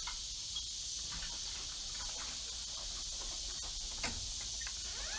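Quiet outdoor ambience: a steady high-pitched insect drone, with a few light knocks and rustles from work inside a chicken run.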